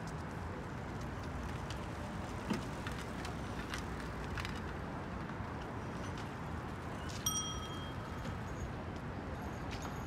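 A single bicycle bell ding about seven seconds in, ringing briefly over steady outdoor background noise, with a small knock a few seconds earlier.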